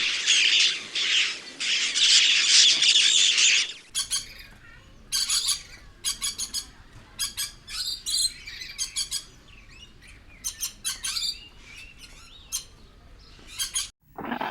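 Pet birds squawking and chirping: a dense, loud chatter for about the first four seconds, then a cut to a different recording of sharp separate calls in quick clusters, with another cut near the end.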